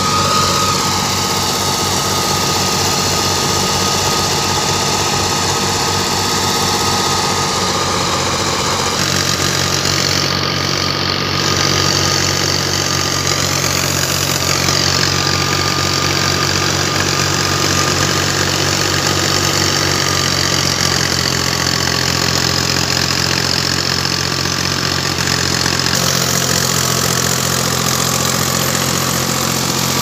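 Engine of wheat-harvesting farm machinery running steadily, its note shifting abruptly twice, about a third of the way in and near the end.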